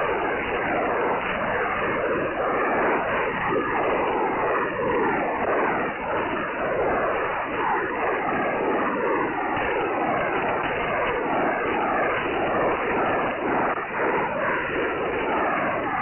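Shortwave lower-sideband signal on 6919 kHz carrying images drawn for a spectrum waterfall, heard through the receiver as a dense, steady warble of many tones under static, with slow arching pitch sweeps every few seconds. The sound is a picture encoded in audio, not speech or music.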